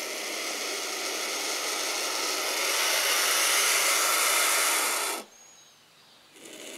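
Young turkey vultures hissing in a defensive, angry display. One long hiss builds and cuts off sharply about five seconds in, then after a short pause the hissing starts again near the end.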